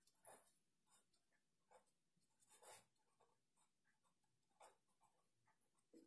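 Very faint scratching of a pen on paper in a few short strokes, as a word is written by hand; otherwise near silence.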